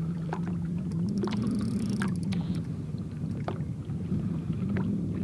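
Boat motor running steadily at low speed, a low hum that wavers slightly in pitch, with scattered light clicks and taps over it.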